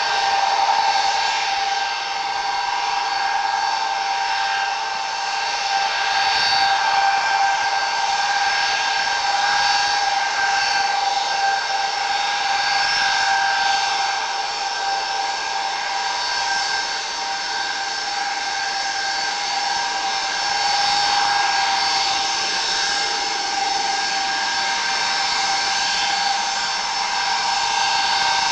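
Ilyushin Il-76's four Soloviev D-30KP turbofans running at taxi power: a loud, steady whine over a strong hiss.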